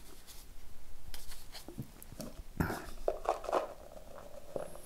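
Plastic tub of powdered joint filling compound being handled and tipped, the powder pouring into a plastic measuring cup, with a scattering of light knocks and rustles, the firmest about two and a half seconds in.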